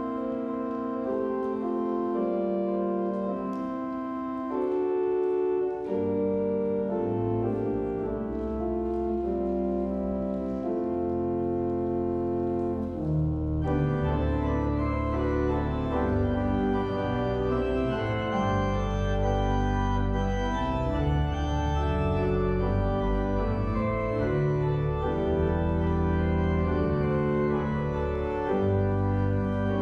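Pipe organ playing a Christmas arrangement in held chords; deep pedal bass notes come in about six seconds in, and the sound grows fuller and denser about halfway through.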